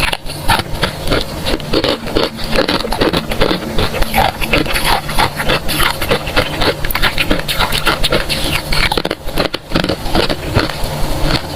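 Close-miked chewing and crunching of freezer frost, a dense, irregular run of crisp crunches that goes on without a break.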